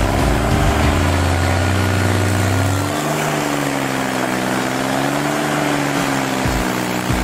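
Remote-controlled self-propelled stump grinder's engine running steadily, its pitch dipping and recovering slightly. A deep low rumble drops out about three seconds in.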